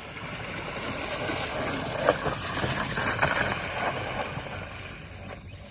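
A vehicle moving along a rough, muddy dirt track: a rushing noise with wind on the microphone that swells and then fades, with a few knocks, ending abruptly.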